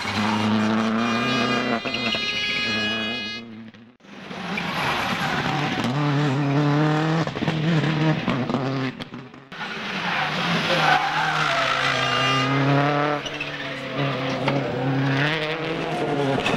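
World Rally Cars' turbocharged four-cylinder engines run hard at high revs, the pitch rising through the gears and dropping on the shifts, with tyre squeal as the cars pass. The sound drops away sharply twice, about four and nine seconds in, between cars.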